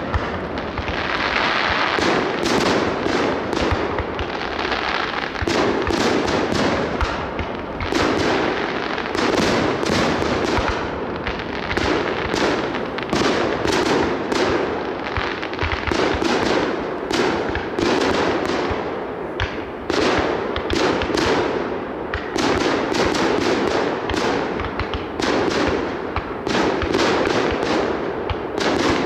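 Fireworks display: a continuous barrage of overlapping bangs, several a second, without a let-up.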